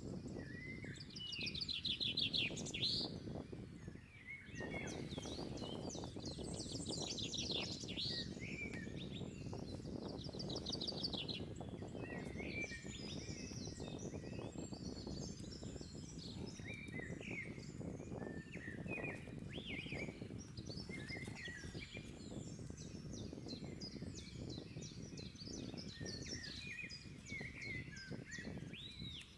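Outdoor birdsong: several birds chirping and giving fast high trills again and again, over a steady low background noise.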